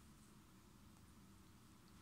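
Near silence: steady low room hum.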